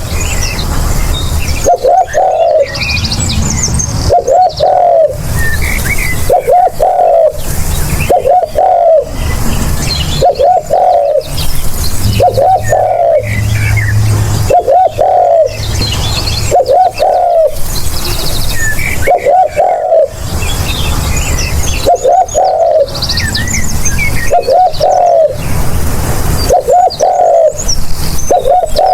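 Spotted dove cooing: a short multi-note coo phrase repeated about every two seconds. Small birds chirp higher up in the background.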